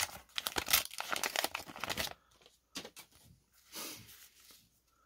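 Paper wrapper of a repacked baseball card pack being torn open and crinkled, a dense crackle for about two seconds, then a few faint rustles and clicks as the cards come out.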